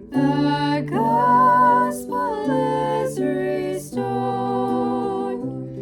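A woman singing a slow melody with held, wavering notes over acoustic guitar accompaniment.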